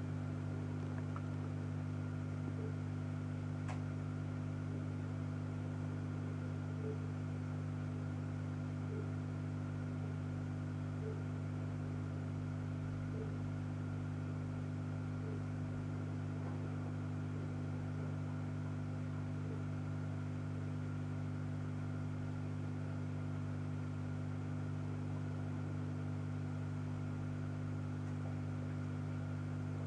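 Steady low electric hum of an aquarium pump motor, with a faint soft blip about every two seconds.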